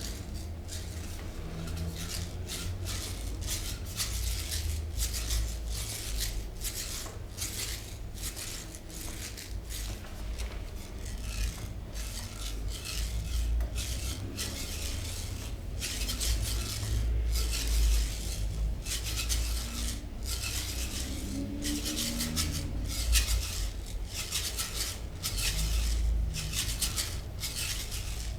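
Hands rubbing and working over skin during a massage: a rapid, irregular run of rasping strokes with a low handling rumble underneath.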